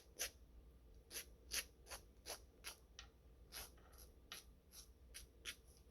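Nail file scraping down the edge of a fingernail in short, faint strokes, about two to three a second, filing off the excess of a nail polish strip.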